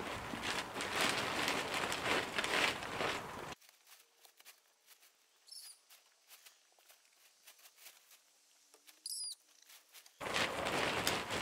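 Blue plastic tarp rustling and crinkling as it is pulled and smoothed over a wire-panel hoop frame. About three and a half seconds in it stops abruptly into near silence, broken by two short high chirps, and the rustling resumes about a second before the end.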